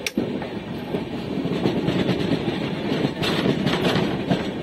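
Kutch Express passenger coach running on the rails, heard at an open window: a steady rumble of wheels and coach, with a few sharp clacks of the wheels over rail joints.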